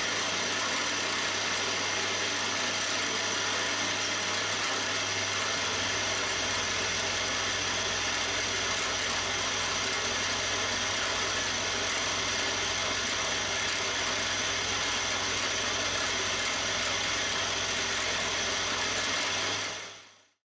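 Milling machine spindle running flat out at 1600 RPM while a 3 mm high-speed-steel ball-nose end mill cuts a shallow groove, about half a millimetre deep, across a metal soft-jaw blank: a steady machine hum with cutting noise over it. It fades out near the end.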